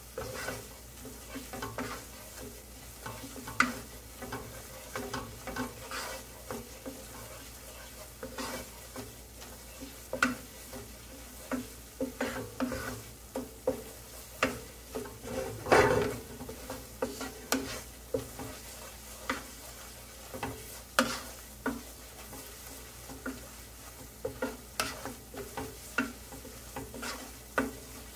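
Wooden spatula stirring and scraping chopped onion and flour through butter in a nonstick frying pan, with sizzling under it: the flour being cooked on low heat for a roux. Irregular scrapes and taps against the pan, the loudest about sixteen seconds in.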